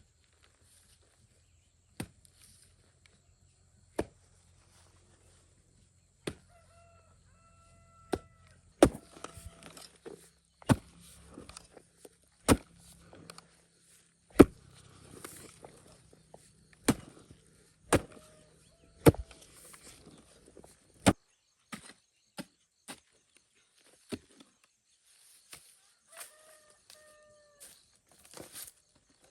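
Repeated chopping strikes, one every second or two, coming thicker in the middle, with a chicken calling briefly twice between them.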